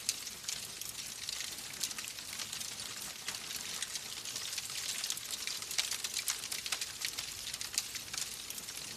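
Wood fire crackling in a fireplace: a steady hiss with frequent small, sharp pops and snaps scattered irregularly through it.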